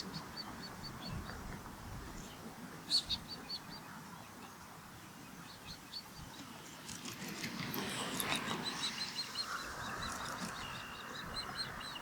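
Ospreys calling: runs of short, high whistled chirps repeated quickly, a brief run at the start and another about three seconds in, then longer runs through the second half.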